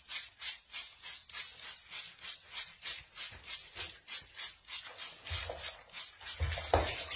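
Snowy owl bathing in a basin of water, beating its wings to splash in a steady rhythm of about four or five splashes a second. A louder low thump comes near the end.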